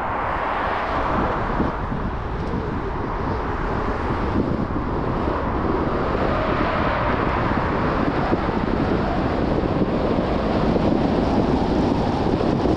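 Steady tyre and wind noise of a moving car, growing a little louder.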